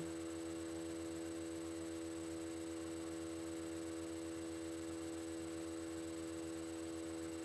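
Steady electrical hum: several constant tones held unchanged throughout, with nothing else heard over it.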